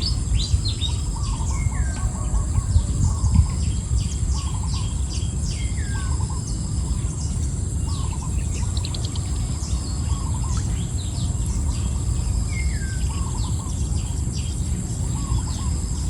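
Several birds chirping and calling, one short call repeating every second or two, over a steady high insect drone and a low rumble.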